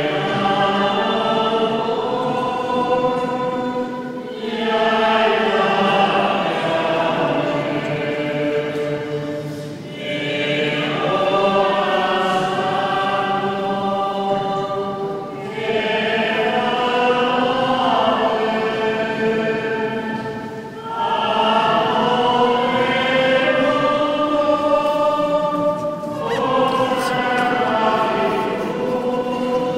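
A group of voices singing a slow religious chant during the Holy Thursday liturgy, in long phrases of about five seconds each with short breaks between them.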